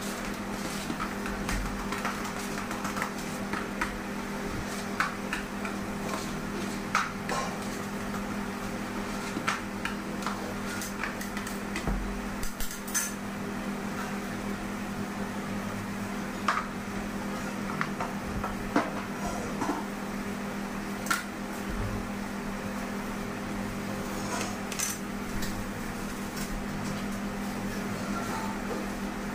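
Scattered clicks and knocks of a long cake knife and cake board against a granite counter as a sponge cake is trimmed and sliced into layers, over a steady low hum.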